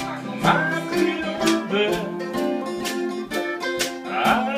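Acoustic bluegrass-style jam: mandolin, banjo and acoustic guitar playing a tune together, with a steady strummed rhythm.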